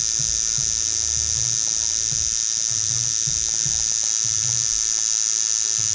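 Coil tattoo machine tuned as a liner, buzzing steadily at 6 volts.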